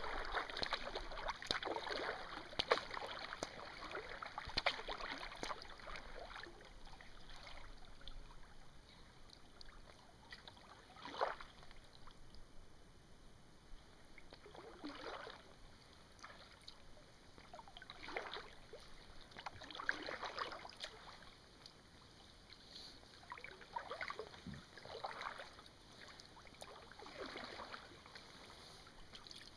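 Kayak paddle blades dipping into calm water, each stroke a soft splash with trickling drips. The splashing is busy for the first several seconds, then comes as single strokes every two or three seconds.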